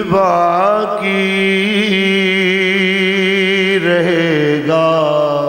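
A man chanting a naat in long, held, wavering notes that slide in pitch. A new phrase starts near the end.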